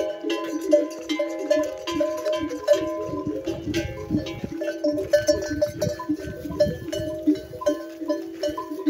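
Metal bells on a walking camel herd clanking irregularly, several bells of different pitches ringing over one another.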